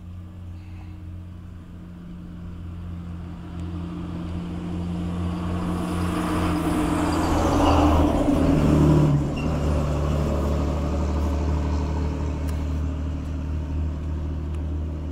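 Engine of a passing motor vehicle: a low hum that grows louder to a peak about eight to nine seconds in, drops in pitch as it goes by, then fades.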